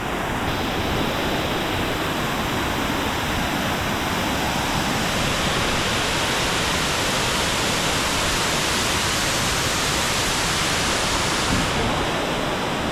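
Waterfall water rushing in a steady, unbroken roar of falling water.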